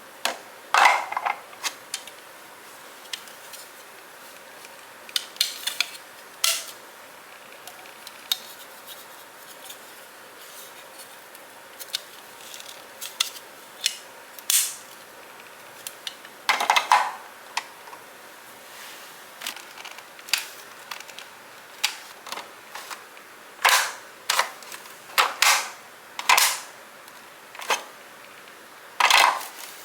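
Scattered sharp clicks and knocks of household items being handled and set down, some coming two or three in quick succession, with quiet gaps between.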